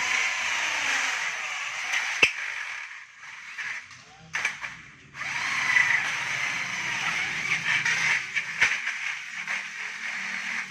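Electric drill boring a hole through an aluminium door frame, the bit cutting the metal in two stretches with a break of about two seconds in between, and a sharp click now and then.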